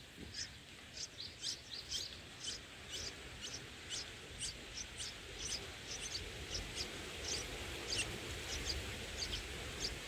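Red-whiskered bulbul nestlings begging at the nest, a long series of short, high, thin chirps, about two or three a second, as the parent feeds them. A faint steady hiss of outdoor background lies underneath.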